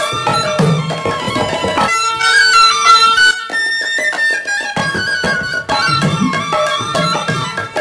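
Instrumental background music: a melody over a steady beat. About two seconds in, the low part drops away for a few seconds, leaving the melody nearly alone, and then it comes back.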